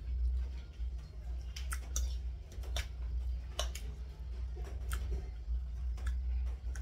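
Eating sounds: irregular sharp clicks, about one a second, over a steady low hum.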